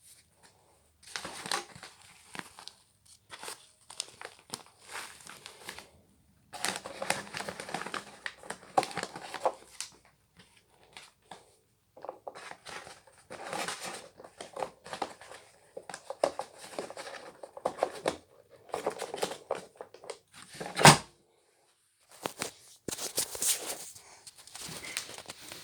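Irregular crinkling and rustling handling noises in short bursts with brief silences between, and one sharp knock about three-quarters of the way through.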